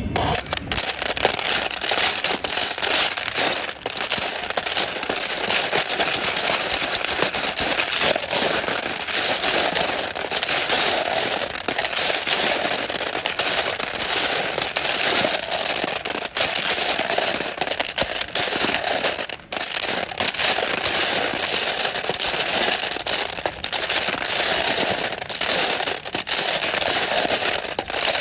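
Glass marbles clicking and clattering against each other in a dense, continuous rattle as a metal spoon stirs through a container full of them, with a brief break about two-thirds of the way through.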